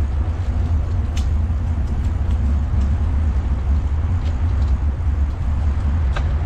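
Steady low rumble of wind buffeting the microphone and tyres rolling while riding a mountain bike, with a few faint ticks scattered through it.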